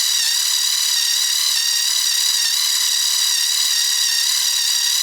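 Drill driver running at speed with a steady high-pitched whine, the pitch dipping briefly under load, as the bit bores into 3/16-inch steel strap. The bit cuts slowly: it is not the sharpest.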